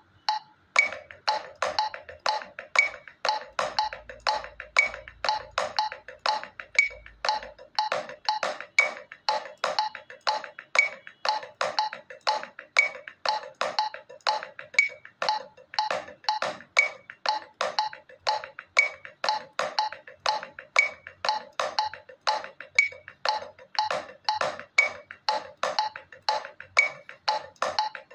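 Drumsticks playing an accent-and-rebound rudiment exercise on a practice pad, a steady stream of sharp strokes with louder accents mixed among soft ones. A metronome clicks along at 120 beats per minute, with a higher-pitched click on the first beat of every four.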